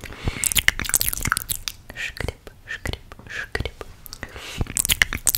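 Close-up ASMR mouth sounds for an 'eating you' trigger: wet lip smacks and mouth clicks coming several times a second, irregularly, mixed with soft breathy whispers into the microphone.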